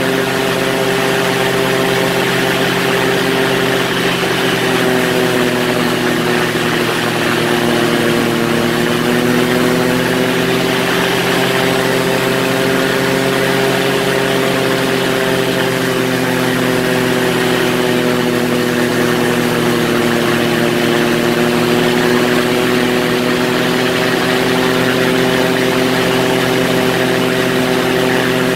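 Quicksilver ultralight's pusher engine and propeller droning steadily in flight, the pitch sagging slightly and coming back up a couple of times.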